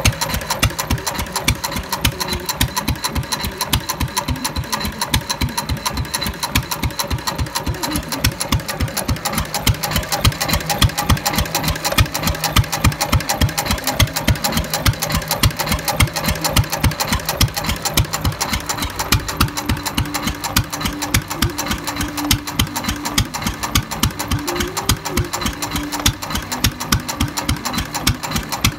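Fairbanks-Morse Z 1 1/2 hp hit-and-miss stationary engine, a single-cylinder hopper-cooled engine, running with a steady rapid beat of exhaust and valve knocks.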